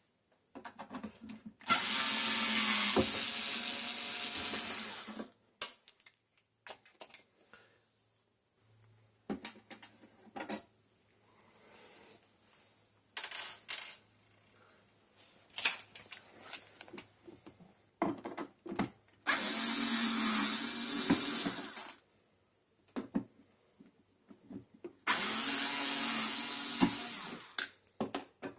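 Cordless power screwdriver or drill running in three bursts of a few seconds each, backing out the Torx screws of a dishwasher door's front plate, with small clicks and handling noises in between.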